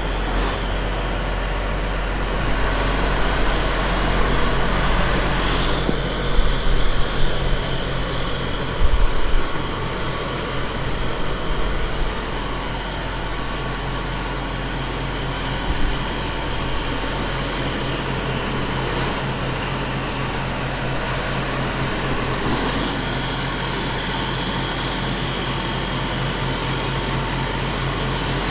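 A heavy farm diesel engine runs steadily, with a low even hum. Some louder clattering comes and goes about six to nine seconds in.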